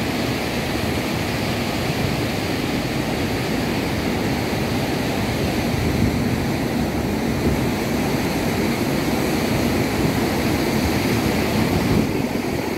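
Onaping High Falls: a waterfall's steady, deep rush of falling water, unbroken throughout.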